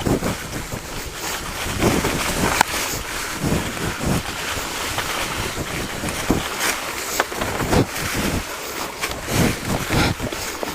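Wind buffeting the microphone, with scattered knocks and clatter.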